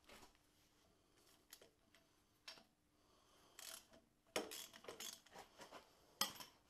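Faint, scattered metallic clicks and clinks of a wrench and a puller fitted to the harmonic balancer of a Volvo V8 engine, with a cluster of clicks about four to five seconds in and one sharp clack near the end.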